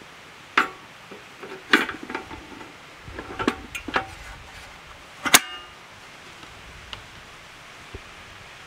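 Metal parts of a paraffin stove clanking and clinking as the heater hood is set onto the burners: about five knocks, the loudest about five seconds in with a short metallic ring. A faint steady hiss runs underneath.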